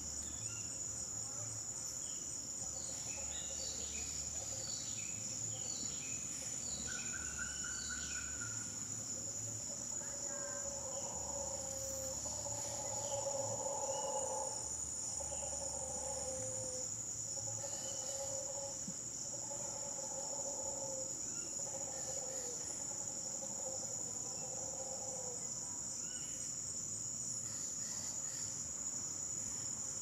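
A steady, high-pitched insect chorus, with a male mantled howler monkey's roars coming through as repeated lower calls in the middle stretch.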